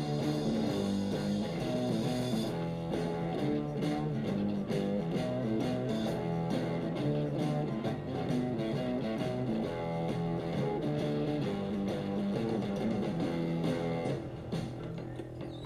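Film soundtrack music led by guitar, playing steadily and getting a little quieter near the end.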